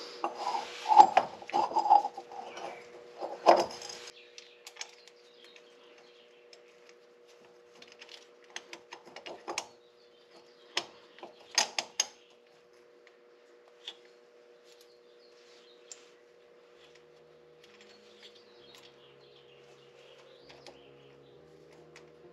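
Metal clinks and clicks as a rear axle half-shaft's CV-joint flange and its bolts are fitted to the differential output flange. There is a dense patch of clatter over the first few seconds, then scattered single clicks, over a faint steady hum.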